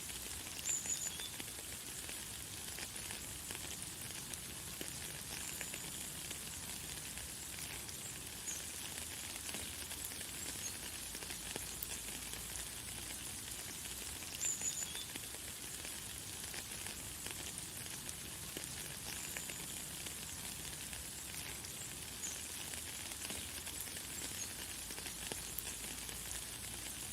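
Light, fine rain falling steadily as an even hiss. A bird gives a short high chirp now and then, about five or six times.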